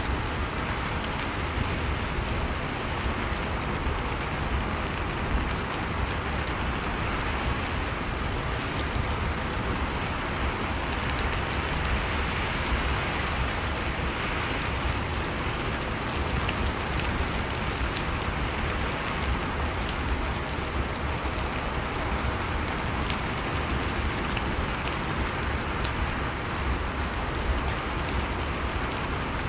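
Steady rain falling, an even hiss with a low rumble beneath and faint scattered drop ticks.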